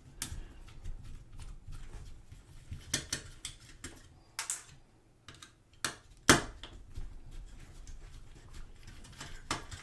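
Scattered small clicks and taps of plastic camera parts being handled and pried during disassembly of a digital camera, with one louder snap about six seconds in.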